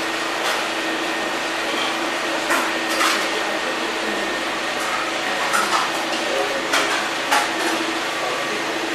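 Steady whirring of an electric pedestal fan with a low hum, broken by a few brief clicks and knocks.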